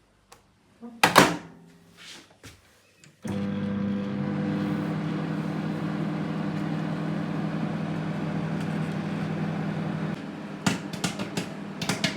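A knock about a second in, then a microwave oven starts and runs with a steady hum, heating a bag of microwave popcorn. Near 10 s the hum drops, and a run of sharp clicks follows.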